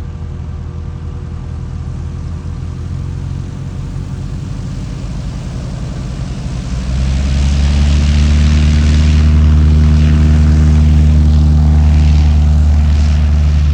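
Propeller airplane's piston engine running with a steady drone, growing louder and then rising sharply about seven seconds in as it comes close.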